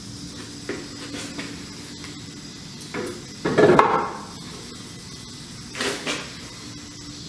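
Hard parts knocking and clattering as an intake manifold is set onto a V8 engine, a few separate clunks with the loudest clatter about three and a half seconds in.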